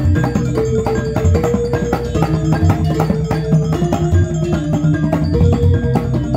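Balinese gamelan music for the Barong dance: a steady melody on metallophones over dense kendang drum strokes, with low deep drum thumps every so often.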